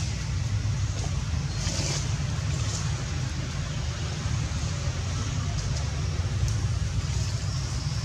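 Steady low rumble of wind buffeting the camera microphone, fluttering quickly, over an even outdoor hiss, with a few faint rustles.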